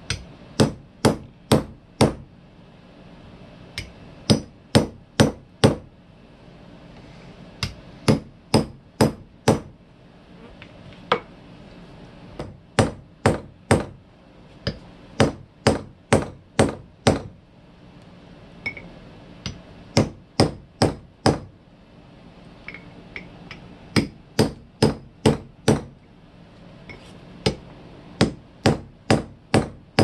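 Claw hammer striking a steel punch set against the stator of an antique Westinghouse fan motor, beating the tight stator out of its housing a little at a time around its rim. Sharp metal-on-metal blows come in runs of five or six, about two and a half a second, with short pauses between the runs.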